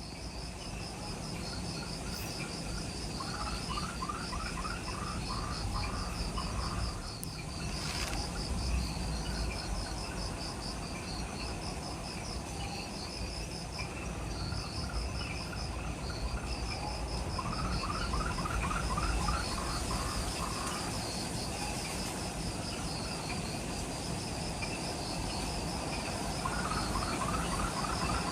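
Evening chorus of forest insects: high, rapidly pulsed chirping in repeated trains, joined in a few bouts by a lower-pitched rattling trill. A steady low rumble lies underneath, and there is one sharp click about eight seconds in.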